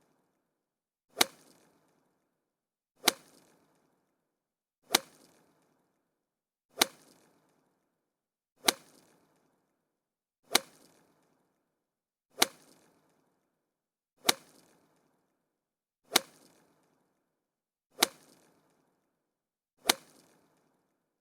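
A golf club hitting a golf ball: one sharp crack with a short fading tail, repeated eleven times at even spacing, about one every two seconds. Each hit sounds the same.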